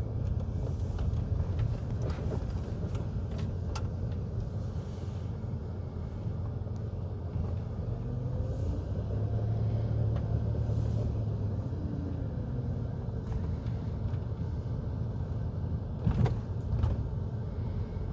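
A car driving: steady low road and engine rumble, with a couple of knocks near the end.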